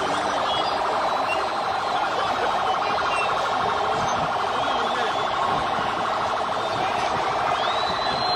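A vehicle siren sounding steadily over the noise of a crowd, with a brief high rising-and-falling glide near the end.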